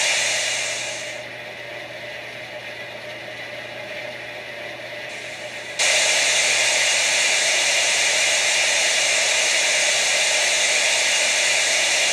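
Cylinder blowdown steam hiss played by the Soundtraxx Tsunami sound decoder through the model locomotive's speaker. A loud hiss dies down over the first second to a quieter hiss, then a second loud blast of hiss starts suddenly about six seconds in and holds steady.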